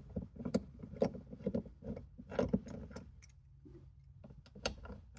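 Ratchet wrench clicking in quick, irregular strokes as two 10mm bolts holding the A-pillar trim are backed out.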